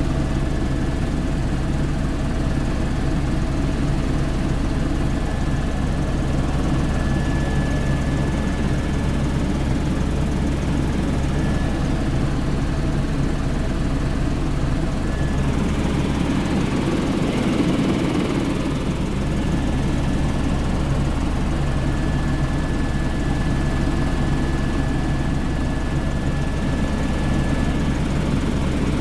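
Helicopter in flight heard from inside the cabin: steady drone of the rotor and engine with a thin, steady high whine. About two-thirds of the way through, a brief swell of rushing noise rises over the drone.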